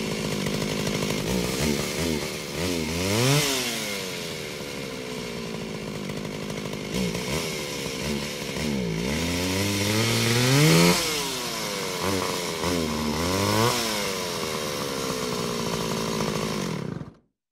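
Chainsaw engine running and revved up three times, each surge climbing in pitch and dropping back, the second the loudest. It then cuts off abruptly near the end.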